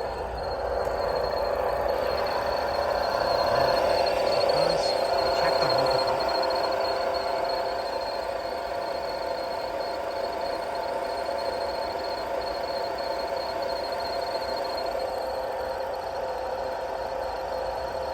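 Vauxhall Astra 1.4 engine running, a steady hum with a thin high whine over it, a little louder a few seconds in, listened to at the water pump, which the mechanic finds fine.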